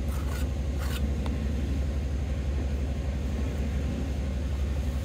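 Steady low hum of a running motor, with a few short scrapes of a steel trowel on wet mortar and concrete in the first second or so.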